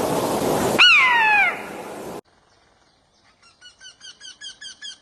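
A bird gives one loud, harsh call that falls in pitch, over a rushing background. After a sudden cut, a different bird starts a rapid series of repeated chirps, about three to four a second, growing louder.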